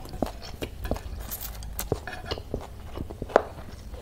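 Close-up mouth sounds of chewing a mouthful of spicy chow mein noodles: a run of short, wet clicks and smacks at an uneven pace, the sharpest about three seconds in.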